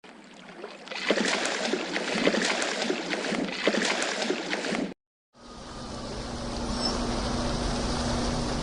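Two separate sound-effect clips joined together. First, water splashing and gurgling with irregular sharp ticks. It cuts off suddenly at about five seconds, and after a brief gap a steady rumbling rush with a low hum starts.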